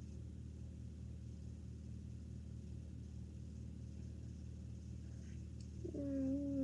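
A steady low hum with a faint regular pulse. Near the end a girl's voice gives a short hummed note, followed by a sharp click.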